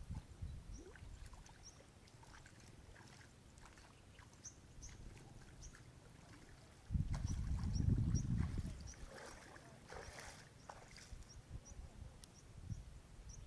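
Water sloshing and lapping around a person wading neck-deep through a muddy pond, heaviest about seven to nine seconds in, with short high chirps repeating in the background.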